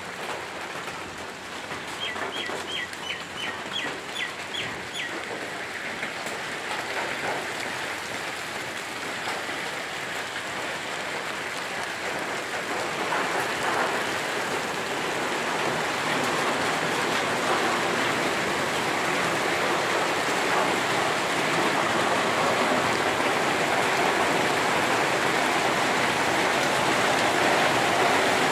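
Rain falling steadily onto a road and foliage, growing heavier and louder throughout. A few seconds in, a bird gives a quick run of about eight short, high chirps.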